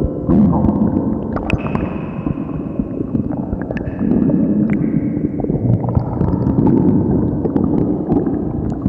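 Very loud stomach growling: a continuous low, gurgling rumble that swells three times, with a few scattered clicks.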